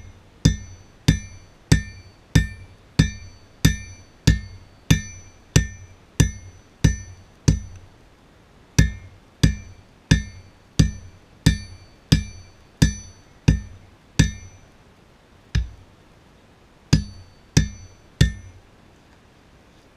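Hand hammer beating red-hot steel on an anvil: a steady run of blows, about one and a half a second, each with a bright metallic ring. The blows pause briefly once, then after a longer pause come a single blow and three last strikes before they stop.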